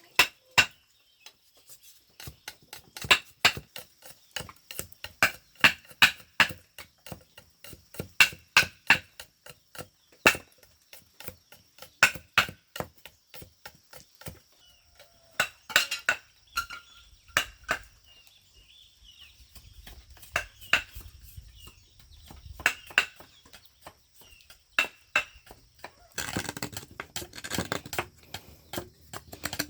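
An irregular series of sharp knocks and clinks, hard objects or a tool striking hard material, some hits ringing briefly. About four seconds before the end they give way to a denser patch of rapid rattling.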